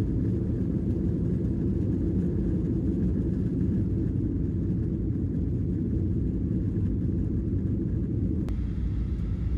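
Steady low rumble of a vehicle in motion, even throughout, with a single sharp click near the end.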